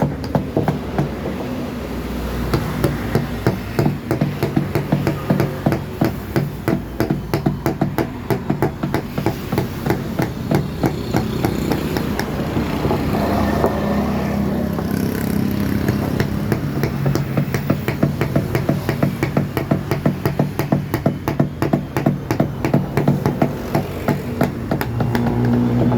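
A mallet tapping a carving chisel into wood, with quick, even strokes several a second without a break. An engine hums in the background and grows louder near the end.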